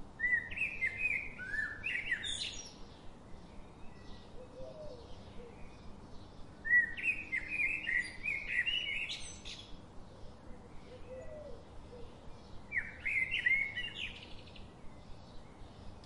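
Budgerigar chirping in three short bursts of quick warbled notes, a few seconds apart.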